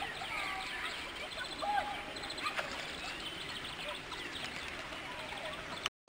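Many birds chirping and calling at once, a busy chatter of short quick chirps, with calls from domestic fowl mixed in.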